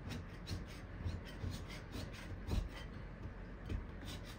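Metal putty knife scraping old wallpaper and paint off a wall, in short strokes about three a second.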